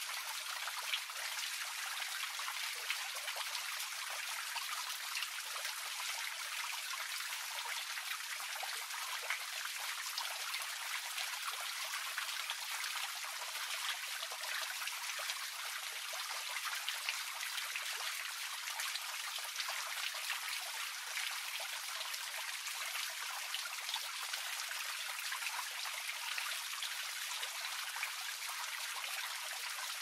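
A thin jet of water from a stone statue fountain splashing steadily into a pond: a continuous trickle and patter of small drops.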